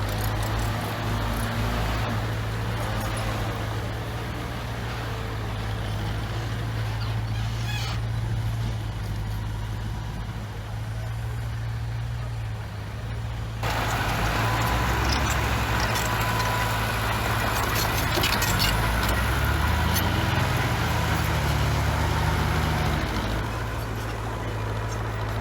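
Heavy earthmoving machinery's diesel engines running steadily. About halfway through, the sound turns abruptly louder and busier, with scattered clanks over the engine.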